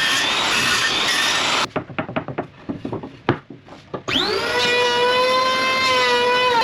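Woodworking power tools cutting oak: loud machine noise, then a stretch of wood knocks and clicks as pieces are handled, then a power tool motor starting about four seconds in, its whine rising briefly and then holding steady.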